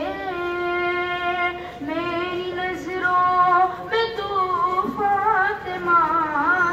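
A male reciter chanting a marsiya, a mourning elegy, solo and unaccompanied, in long held notes joined by sliding ornaments, phrase after phrase with short breaks between.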